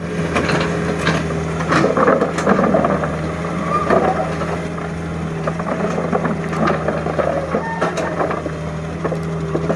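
Mini excavator's engine running steadily at a low, even pitch, with irregular metallic clanks and knocks over it.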